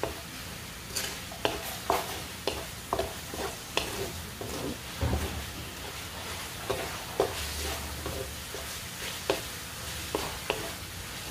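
Wooden spatula scraping and knocking against a metal wok as chicken pieces are stirred and sautéed, in irregular strokes about two a second with a short pause past the middle, over a low sizzle of frying.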